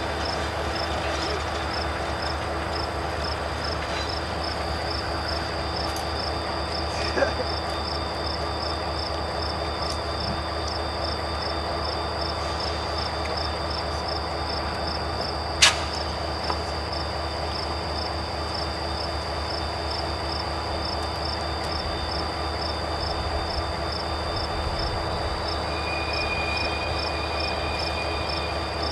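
GP39 diesel locomotive and yard slug moving slowly past, their engine drone steady and low, with crickets chirping in a regular pulse about twice a second. A single sharp click about halfway through is the loudest moment, and a thin, high squeal from the train's wheels comes in near the end.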